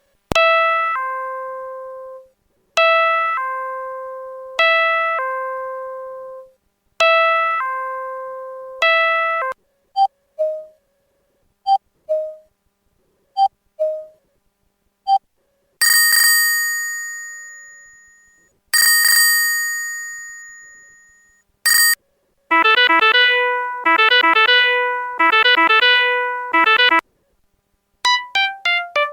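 IM-3000 message-arrival alarm playing several electronic alert chimes in turn. First comes a falling two-note ding-dong repeated five times, then a string of short beeps, then two long, bright ringing chimes. A quick little melody follows, and a falling run of notes begins near the end.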